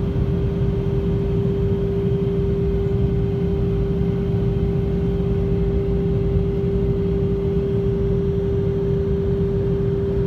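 Airliner cabin noise in flight on approach: a steady rumble of engines and rushing air with a constant drone.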